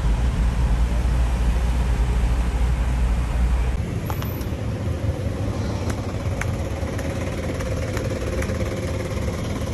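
Heavy engine and road rumble inside a moving shared pickup-truck taxi (songthaew). It cuts off abruptly about four seconds in, giving way to lighter street noise with a steady engine hum and a few light clicks.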